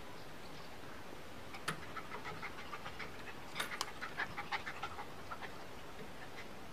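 A dog's metal chain rattling: a quick run of short, light clinks, about three or four a second, starting under two seconds in and dying away near the end, as the chained dog jumps about and rolls while playing.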